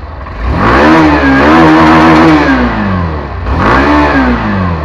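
Hero Xtreme 160R's single-cylinder engine revved, heard right at the exhaust silencer. A long rev climbs, holds for about two seconds and drops back to idle, then a second, shorter blip of the throttle comes near the end.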